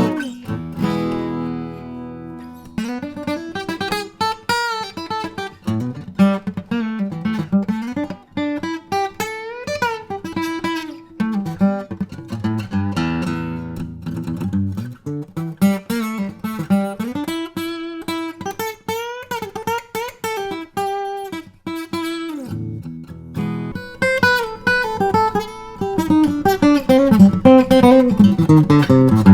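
Acoustic guitar playing a picked melody over ringing chords. It opens with a sharp strum, and the chords get fuller and louder near the end.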